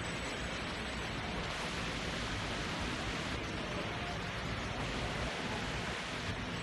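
Steady, even background noise of a machine workshop, with no distinct mechanical rhythm or clatter.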